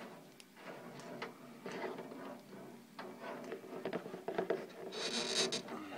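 Small scattered clicks and taps of hands working on a car cigarette lighter adapter and its wires at close range, with a short hiss about five seconds in.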